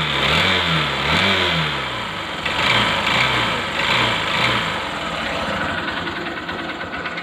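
Honda Shine's 125 cc single-cylinder four-stroke engine running, revved up and down twice in the first two seconds and then settling toward idle, carrying an abnormal mechanical noise that the mechanic puts down to either the cylinder bore or a crankshaft bearing.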